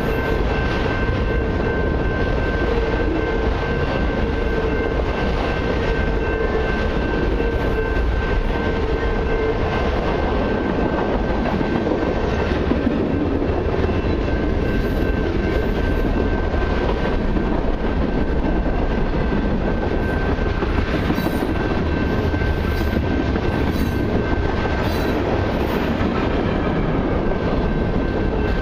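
Cars of a long Canadian Pacific freight train rolling past at a grade crossing: a steady rumble of steel wheels on rail with clickety-clack over the joints and a thin, steady high ring over it.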